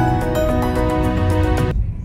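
Background music of held notes over a light, even beat, cutting off suddenly near the end.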